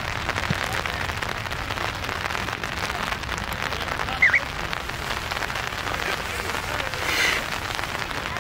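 Steady rain pattering, a dense even crackle of small drops, with a brief high chirp about four seconds in.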